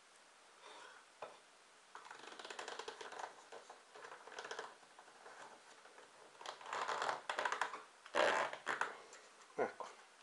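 Rolled cardboard strips rustling and scraping as they are pushed and packed into a small tin can, in irregular bursts, loudest about eight seconds in.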